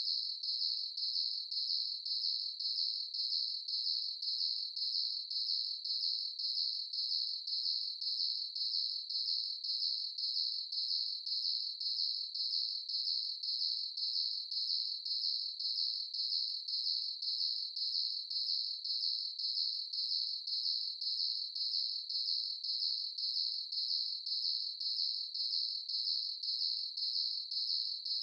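Cricket chirping steadily in an even, unbroken rhythm of about two high-pitched chirps a second.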